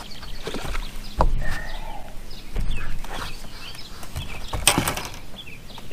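Hooked largemouth bass splashing at the water's surface beside the boat as it is landed by hand, with a short, louder splash about four and a half seconds in.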